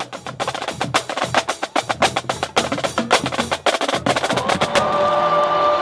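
Percussion music: a rapid run of sharp drum and wood-block hits, giving way near the end to a loud sustained wash with two held tones.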